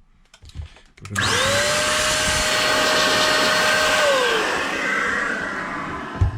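A small electric blower motor spins up about a second in, runs steadily with a rush of air, then winds down and fades; a short thump near the end.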